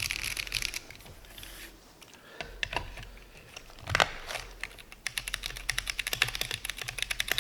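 Mechanical keyboard reduced to its bare PCB with no case, lying on a mouse pad, being typed on. A few scattered keystrokes with one louder hit about four seconds in, then a fast run of typing from about five seconds.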